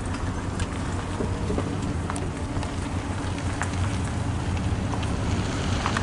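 Freight train rolling past: a steady low rumble and hiss with scattered sharp clicks and clanks from the wheels and cars.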